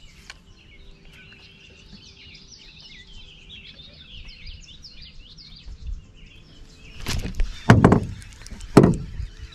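Birds chirping and twittering steadily; then, about seven seconds in, three loud clattering thuds as the phone that is filming falls over in the boat.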